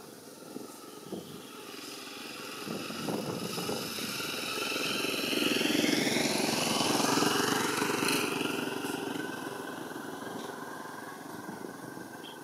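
A motor vehicle passing by: its engine sound swells over several seconds, peaks near the middle, then drops in pitch and fades away.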